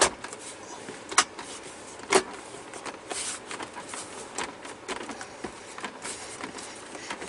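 Plastic inner trim panel of a 2016 GMC Sierra's center console lid being pressed into place by hand: three sharp plastic clicks about a second apart near the start as its clips snap in, then softer tapping and rubbing of hands on the plastic.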